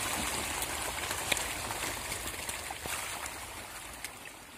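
A large shoal of tilapia feeding at the pond surface, with a steady patter of small splashes and slurps from many fish at once. The sound slowly fades away in the second half.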